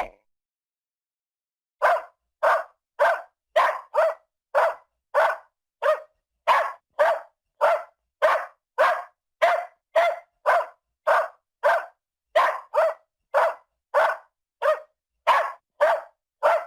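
A dog barking in a long, steady series of short single barks, about two a second, starting about two seconds in.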